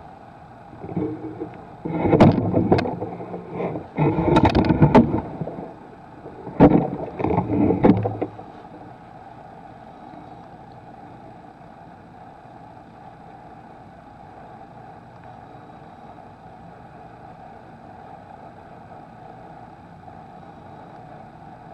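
Handling noise: a run of knocks, bumps and rustling for about eight seconds, then a steady low hum of room noise.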